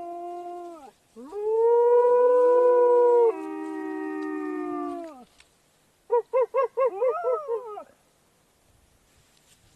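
Wolves howling. One long howl slides down and dies away about a second in. A second howl rises and holds, and a lower voice joins it before both fall away. Then come about half a dozen quick rising-and-falling yips, ending in a short wavering howl that drops off.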